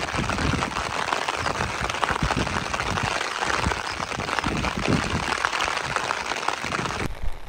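Wind and rain in a steady rush, with uneven low buffeting from the wind on the microphone; it cuts off suddenly near the end.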